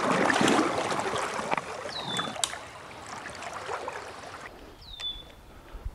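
Creek water running as a steady rushing hiss, louder for the first second or so, then settling lower. A bird gives a short, high, downward-slurred whistle twice, about three seconds apart, and there is a single sharp click between them.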